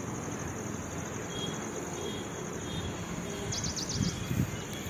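Outdoor ambience: crickets trilling steadily and high over a broad, even hiss of open-air background noise. A short run of high bird chirps comes about three and a half seconds in, followed by a few soft low bumps.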